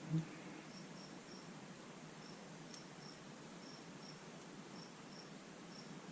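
A cricket chirping faintly: short high chirps, single and in pairs, at irregular intervals. A single knock sounds just after the start.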